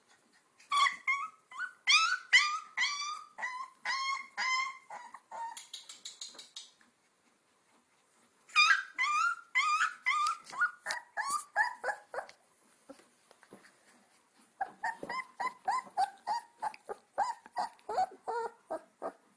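Two-week-old Alaskan Malamute puppies whining and yelping in quick strings of short, high-pitched squeals. They come in three bouts with short pauses between, and the last bout is lower in pitch.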